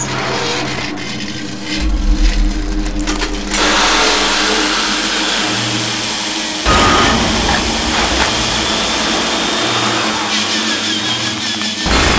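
Power drill whirring and grinding over a steady low droning hum. The grinding noise cuts in sharply about three and a half seconds in and grows louder again near seven seconds.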